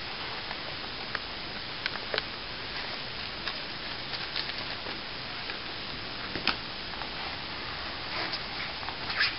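Light plastic clicks and rustles from handling a bag valve mask and a cervical collar, scattered irregularly and loudest about two, six and a half and nine seconds in, over a steady hiss.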